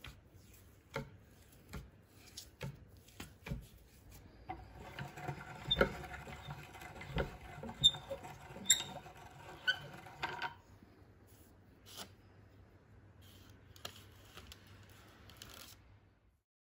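Hand-cranked metal Reliance meat grinder with a biscuit-press plate turning as it extrudes dough: regular clicks and knocks of the crank about once a second, with a busier grinding stretch and a faint whine from about four to ten seconds in. The sound stops abruptly near the end.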